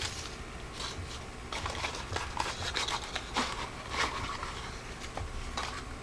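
Thin cardboard packaging handled and opened by hand: an inner card box drawn out and turned over, with irregular soft rubs, scrapes and small taps of card.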